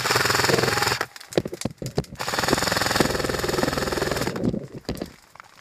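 Airsoft rifle firing on full auto: a burst of about a second, a few single sharp clicks, then a longer burst of about two seconds, followed by scattered clicks.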